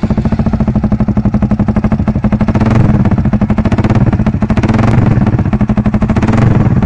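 Yamaha R15's single-cylinder engine running loud through an SC Project aftermarket muffler: a fast, even popping exhaust note that swells slightly a few seconds in.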